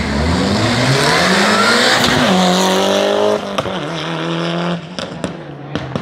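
A racing car's engine at full throttle, its pitch climbing hard with a quick upshift about two seconds in. The sound drops away suddenly after about three and a half seconds to a steadier, lower engine note, followed by a few sharp cracks near the end.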